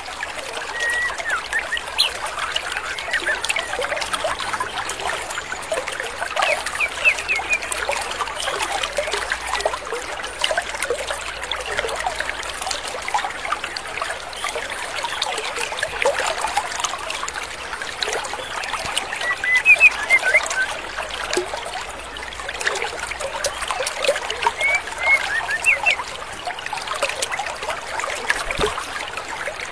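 Stream water running over rocks, with a few short chirping calls of a female white-rumped shama that come in small clusters every several seconds.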